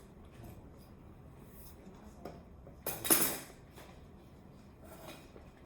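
Small objects being handled, with light clicks and one short, loud rustling clatter about three seconds in.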